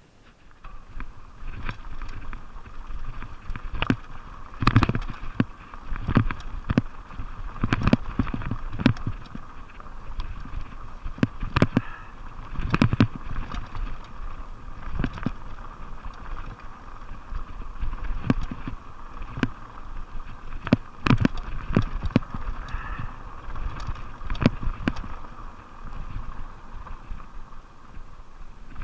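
Fuji Beartooth 27.5+ mountain bike rolling fast down a rough dirt trail: a steady rumble of the tyres on the dirt and wind, broken by frequent sharp knocks and clatter as the bike hits bumps.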